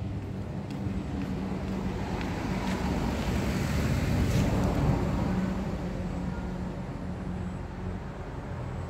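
A motor engine running nearby, a low steady hum that swells about halfway through and then eases off.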